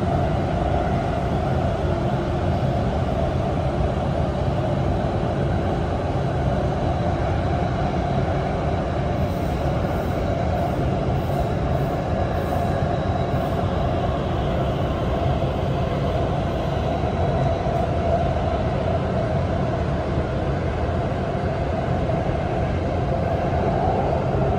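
Steady interior running noise of a Kaohsiung MRT Red Line train car in motion between stations, an even rumble that holds level throughout.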